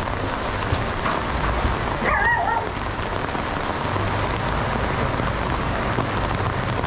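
Steady rain falling on a wet street and the surrounding roofs and awnings, an even hiss throughout. About two seconds in there is one brief high-pitched call.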